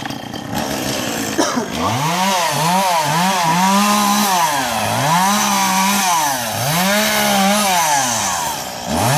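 Two-stroke chainsaw running hard, its engine pitch repeatedly sagging and climbing back every second or two as it cuts.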